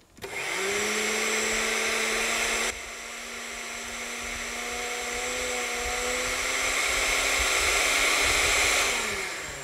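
Electric blender motor running as it chops fresh herbs into salt for an herb salt. It spins up with a rising pitch, drops suddenly in level about three seconds in, slowly builds again, and winds down with a falling pitch near the end.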